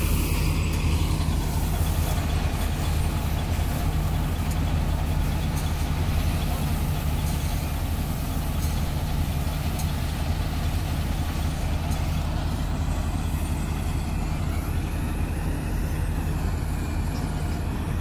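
Farm diesel engine running steadily at a constant speed, a low, unchanging drone with no revving.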